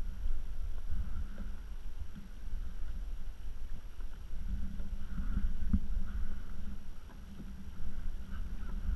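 Small sea waves lapping and slapping against the hull of an Old Town Ambush sit-on-top kayak as it rocks, over a steady, uneven low rumble.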